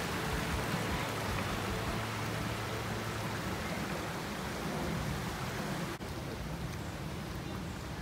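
Steady rushing outdoor noise with a low hum underneath, dipping briefly about six seconds in.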